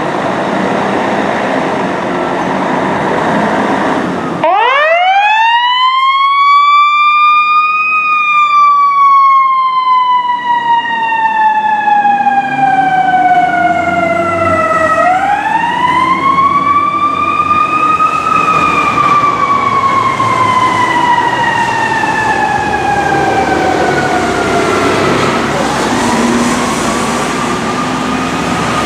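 Fire engine siren, apparently mechanical, winding up in pitch about four seconds in after a stretch of loud rumbling noise. It slides slowly down, winds up again midway and slides down again. A third, fainter rise begins near the end.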